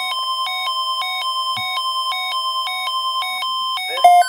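NOAA Weather Radio alert tones for a severe thunderstorm watch, heard through a handheld walkie-talkie: a steady high tone with an alarm tone that switches pitch about twice a second. Just before the end it stops and a quicker pulsing beep begins.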